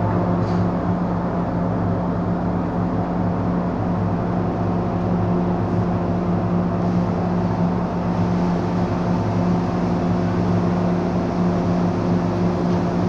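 Steady hum inside a standing MTR M-Train electric multiple unit, its air-conditioning and onboard electrical equipment running while the doors are open at a platform: several low steady tones over an even rush of air.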